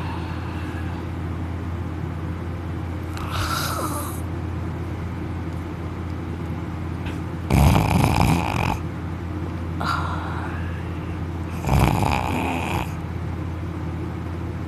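A young man snoring heavily in deep sleep, lying on his back with his mouth open. There is a softer snore a few seconds in, then two loud, longer snores about four seconds apart in the second half, over a steady low hum.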